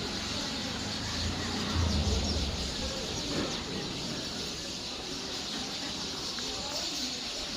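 Many small birds chirping together in a dense, overlapping chatter, with a brief low rumble about two seconds in.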